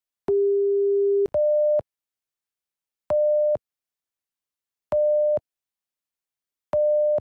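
Seismograph event-detection alarm beeping: one steady lower tone about a second long, then four shorter, higher beeps about two seconds apart. It signals that the seismograph has detected a possible earthquake.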